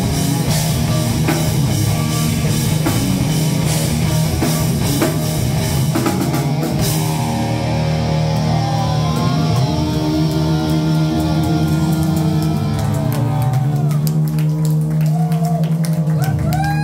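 Live heavy rock band (distorted electric guitars, bass and drum kit) playing the close of a song. About seven seconds in, the cymbals drop out and a held guitar chord rings under sliding, bending guitar notes. Drum and cymbal hits come back near the end.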